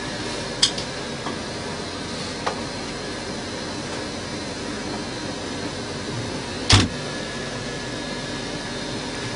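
Steady rushing hum of a vehicle's running engine and heater fan, heard inside the cabin, with a few short knocks, the loudest about two-thirds of the way through.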